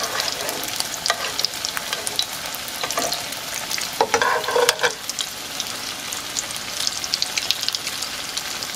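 Breaded potato cakes frying in hot canola oil in a cast-iron skillet: a steady sizzle with many sharp crackles, and a brief louder clatter about four seconds in.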